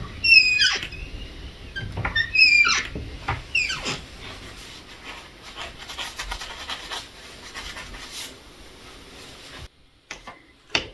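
Door hinge squeaking as the door is swung back and forth to work in silicone lubricant: about four short, high squeals that bend in pitch in the first few seconds, then a rough rubbing sound that cuts off near the end.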